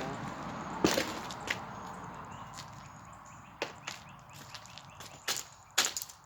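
Scattered sharp clicks and knocks of broken box-fan pieces being handled and knocked together, a few at a time, with a louder cluster near the end.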